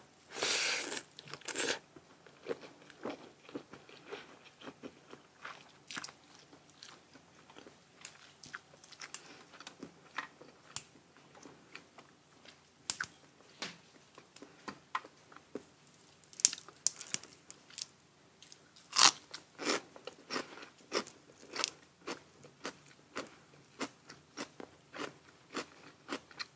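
Close-miked eating of spicy papaya salad with rice noodles: irregular crunching bites and chewing, with a few louder crunches past the middle.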